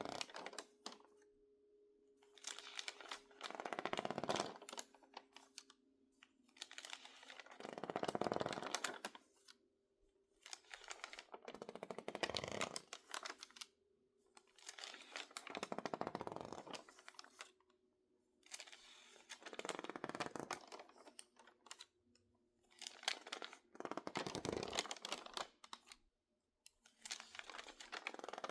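Crinkly, water-damaged magazine pages crackling as they are handled. The crackling comes in bursts of a second or two, about every four seconds.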